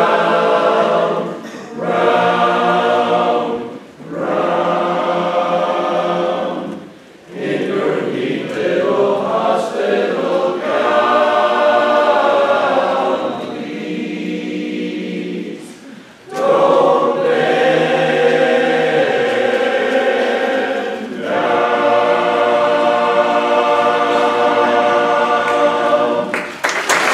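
Barbershop chorus singing a cappella in close harmony, in sustained phrases with brief breaths between them. Applause breaks out just before the end as the song finishes.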